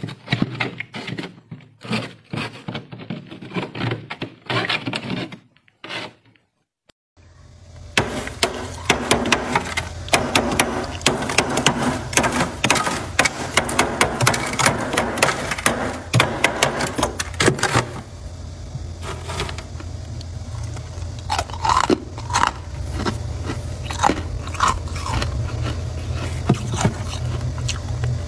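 Freezer frost being handled and scraped. First, loose frost crackles crisply as fingers squeeze and crumble it. After a short gap, a scraper rasps densely across a thick frost layer for about ten seconds, over a steady low hum. Scattered scrapes and crackles follow.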